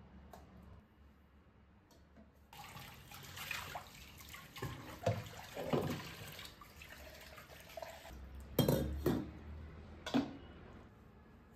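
Tap water running into a stainless steel sink while a steel utensil is rinsed, with a few clanks of metal against the sink. The water stops about two-thirds of the way through, and a couple more knocks follow as the sink is handled.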